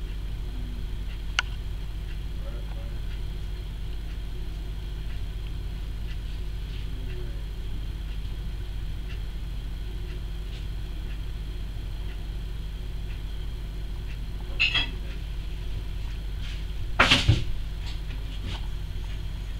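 Steady low hum, with a sharp click about a second in and a short clatter of knocks near the end, the loudest sound here.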